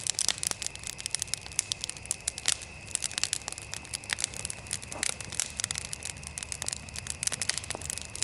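Wood campfire of burning logs crackling and popping in quick, irregular snaps as it throws up sparks, over a faint steady high-pitched hum.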